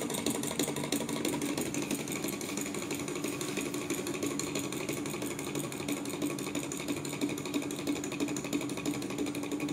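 Small two-piston Stirling engine running with its propeller spinning, its mechanism ticking in a fast, even rhythm over a steady hum, still turning on the heat left after the flame was blown out.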